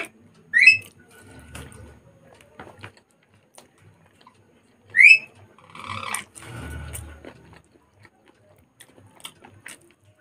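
Two short, loud, rising whistle-like chirps, about half a second in and again about five seconds in. Between them are fainter sounds of eating by hand: chewing, and fingers mixing rice on a paper plate.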